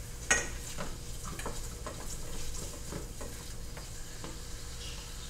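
A utensil stirring and scraping in a skillet on the stove: a sharp clack about a third of a second in, then a string of lighter clicks and scrapes, over a low sizzle of food frying.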